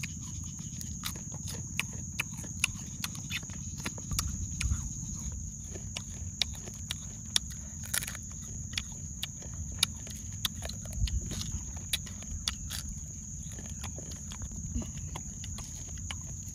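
Crunching of crisp-fried rhinoceros beetles being chewed and their hard shells cracked by hand and mouth: many short, irregular clicks and cracks. A steady high-pitched tone and a low rumble run underneath.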